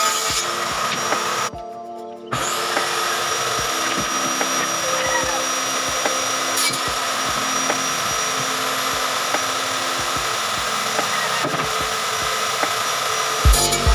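Table saw running steadily while pallet-wood boards are ripped into thin strips. The sound drops away briefly about one and a half seconds in.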